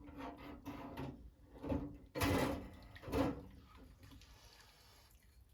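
Wet handling noises: a few knocks and rustles with some water sounds, loudest about two and three seconds in, as a motorcycle clutch basket is lifted out of an ultrasonic cleaner's bath and handled. The noises die away near the end.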